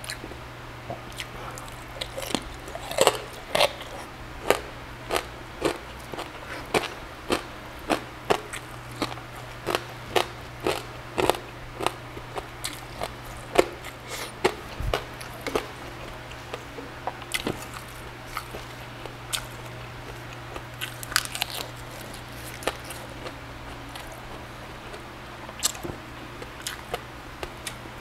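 Close-up chewing and crunching of charcoal-grilled pork belly (liempo) with charred skin, a quick run of crunchy bites about two a second for the first half, then sparser chewing with a short burst a little past the middle.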